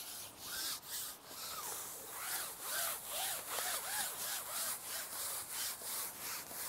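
Carbon match-fishing pole being shipped out, pushed through the hands in repeated rubbing strokes, about two a second, with a faint squeak rising and falling on each push.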